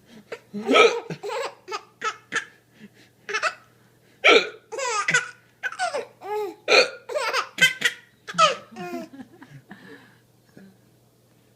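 A man hiccuping again and again, each hiccup drawing bursts of laughter from a four-month-old baby. The hiccups and laughter die away about ten seconds in.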